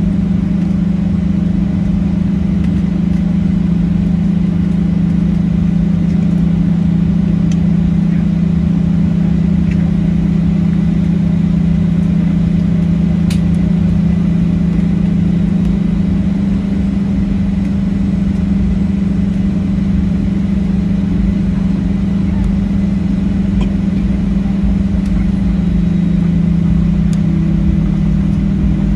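Steady, loud cabin drone of a Boeing 737-700 heard from a forward seat, its CFM56-7B jet engines running at idle before takeoff. The hum holds one pitch, then shifts slightly and gains a second, higher tone near the end.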